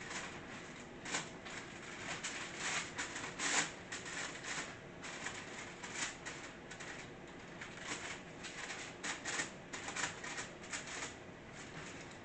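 Hands kneading and mashing an oily red velvet cookie dough in a bowl: irregular sticky squishing clicks and crackles, bunched in quick runs with short pauses.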